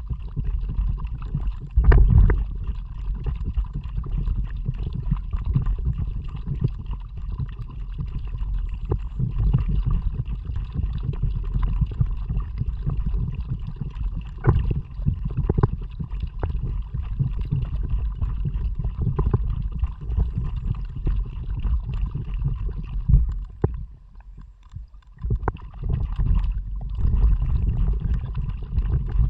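Kayak on the move: water sloshing and splashing with the paddle strokes under a low wind rumble on an action camera's microphone. The rumble drops away briefly near the end.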